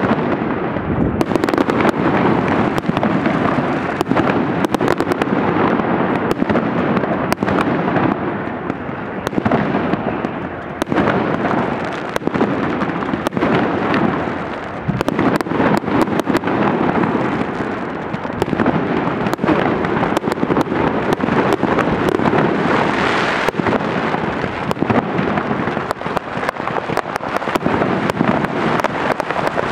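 Festive fireworks display: a dense, continuous barrage of bangs and crackling from many shells going off together.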